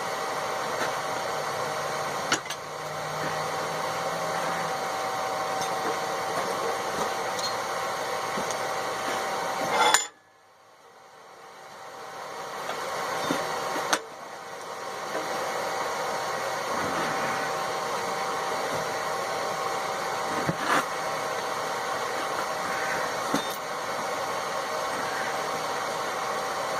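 A forge runs with a steady rushing hum and a held tone, and a few sharp metal clinks come through it. About ten seconds in the sound cuts out suddenly, then swells back over the next few seconds.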